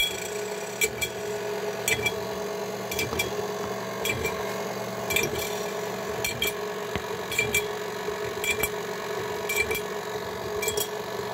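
KitchenAid Artisan tilt-head stand mixer running on slow speed with its flat beater circling over a dime in the empty stainless bowl: a steady motor and gear hum with a light tick about once a second. This is the dime test for beater height. The dime only creeps around now and then, a sign that the beater clearance is about right.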